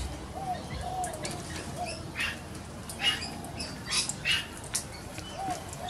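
A small flock of galahs feeding on scattered seed on the ground, giving a few short harsh squawks through the middle over soft, low rising-and-falling chirps.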